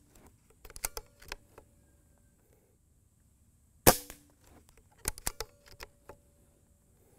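A .22 Benjamin Marauder PCP air pistol fires one sharp shot about four seconds in. Before and after it come quick runs of metallic clicks as the bolt is cycled to chamber the next pellet.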